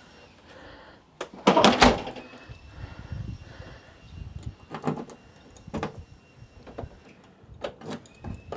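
Toyota AE86 Corolla door shut with a loud thud about a second and a half in, then a few short sharp clicks from the door's lock and key being worked.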